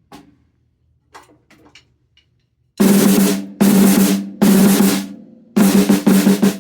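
Premier snare drum with newly fitted AJAX snare wires being played: after a few faint taps, three short rolls about three seconds in, then a run of quick strokes near the end, each with the head's ringing tone. The snare response is clean, with no sizzle or rattles.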